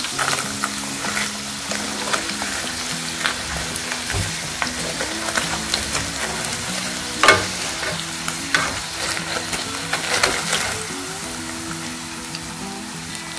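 Breaded chicken wings deep-frying in hot oil in a pan: a steady sizzle and crackle scattered with sharper pops and clicks, the loudest about seven seconds in.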